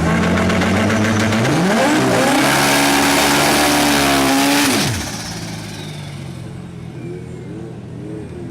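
Car engine under hard acceleration: its pitch climbs and holds high, then the throttle closes about five seconds in and the pitch and loudness drop sharply, leaving a quieter engine with a few small blips.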